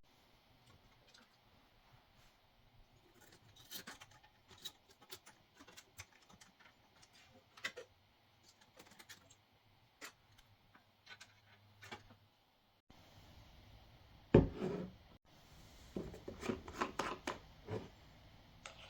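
Hands handling hardware and packaging: scattered light clicks, rubbing and scratching, a sharper knock about fourteen seconds in, then a quick flurry of clicks and rattles near the end.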